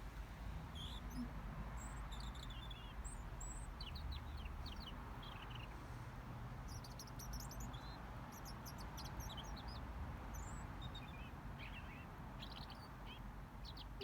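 Birds chirping: many short, high chirps and calls in loose clusters, over a steady low background rumble.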